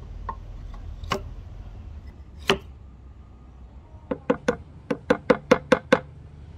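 A hammer taps a steel kitchen axe head down onto its wooden handle to seat it. A few scattered knocks come first, then about nine quick taps near the end, about four or five a second.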